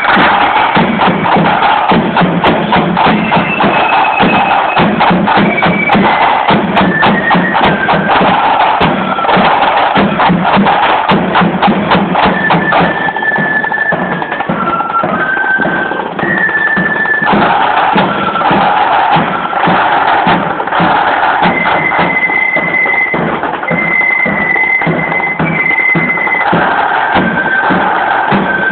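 Marching band playing on parade: rapid side-drum strokes under a high melody of held notes that step up and down.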